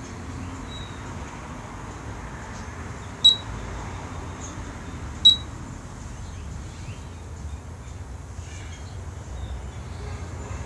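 Two short, loud, high-pitched beeps about two seconds apart over steady low background noise.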